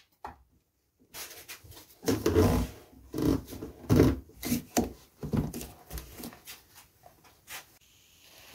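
Hands-on handling noise from a router-table fence being shifted on the wooden table top and a dust-collection hose being pushed into its port: a run of irregular knocks, bumps and rubbing scrapes, loudest a couple of seconds in, that stops near the end.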